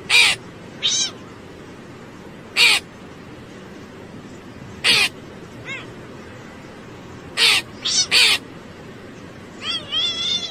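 A crow gives short harsh caws every couple of seconds, and a cat answers with softer meows between them. Near the end the cat lets out a quick run of wavering meows, over a steady background hiss.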